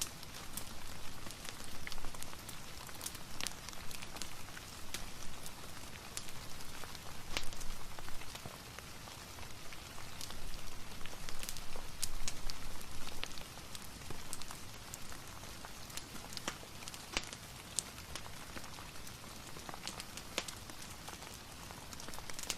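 Soft, steady rain, an even hiss, with scattered sharp ticks of drops throughout.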